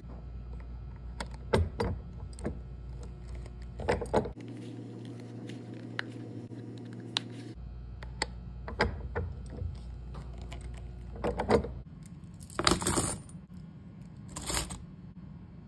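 Sharp metal clicks from a press setting brass rivets through leather on a steel anvil, over a low steady hum that comes and goes. Near the end, coins rattle into a leather tray, and a bunch of keys is dropped in about a second and a half later.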